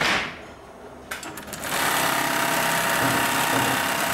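A brief hiss at the start, then a few clicks. About a second and a half in, the Brother BAS-326G programmable pattern sewing machine starts and runs steadily, stitching a pattern into leather held in its clamp frame.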